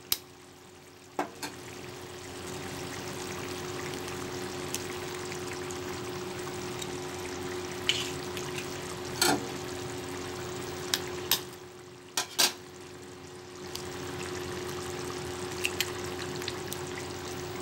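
Tomato egg curry gravy bubbling at the boil in a pan, a steady low hiss. Raw eggs are cracked and dropped into it, giving several short sharp taps and clicks.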